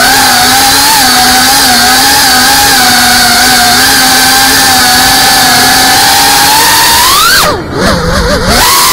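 FPV racing quadcopter's brushless motors and propellers whining steadily at cruising throttle, heard from the onboard camera. About seven seconds in the pitch rises sharply as the throttle is punched, then drops away for about a second with a low rumble before the steady whine picks up again near the end.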